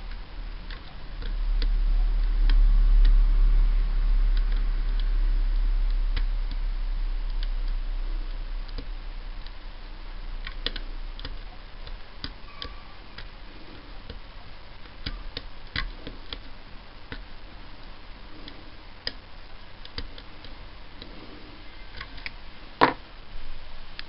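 Small, irregular metallic clicks of a dimple pick and tension tool working the telescopic pins of a Mul-T-Lock Basic euro-profile cylinder stuck in a false set, with one sharper click near the end. A low rumble is loudest in the first several seconds.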